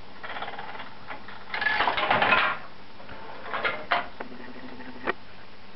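Meccano ping pong ball machine running on its geared mains motor: metal parts of the crank-driven mechanism clatter and rattle, loudest for about a second around two seconds in, followed by a few sharp clicks.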